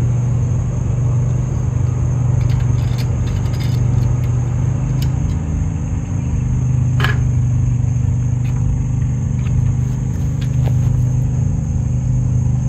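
A steady low engine-like hum runs throughout, with a few light clicks and scrapes and one sharper tearing stroke about seven seconds in as electrical tape is wrapped onto the end of a length of rigid conduit.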